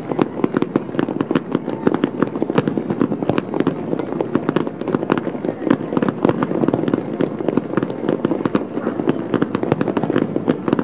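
Fireworks bursting in quick succession: a dense, unbroken stream of sharp pops and crackles over a steady low rumble.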